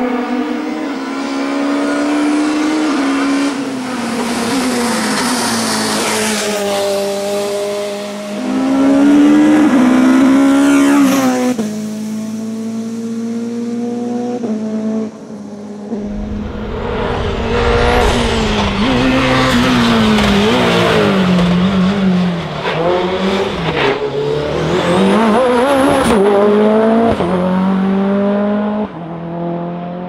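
Hillclimb race car engines revving hard as the cars come up the course one after another, the pitch climbing and dropping back at each gear change and easing off for bends.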